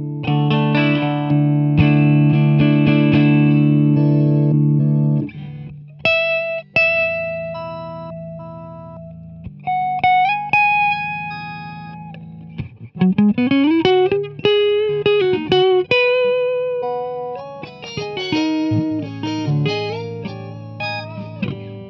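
Electric guitar played through an Electro-Harmonix Intelligent Harmony Machine harmonizer pedal: first a held chord, then single notes with an added harmony voice. About thirteen seconds in, the pitch glides smoothly upward by more than an octave, a whammy-like sweep from the pedal's momentary mode engaged by the footswitch.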